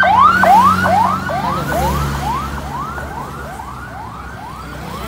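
Vehicle siren sounding a yelping whoop, a rising sweep repeated about twice a second, getting fainter as it moves off. A passing vehicle's engine rumbles under it in the first seconds.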